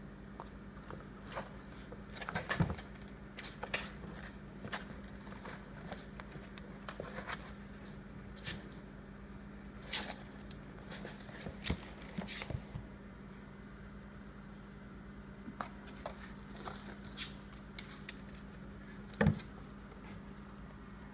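Empty cardboard cereal box being knocked, scraped and rustled by playing kittens climbing in and on it, in irregular scattered taps and scuffs. The two loudest come about two and a half seconds in and near the end. A low steady hum runs underneath.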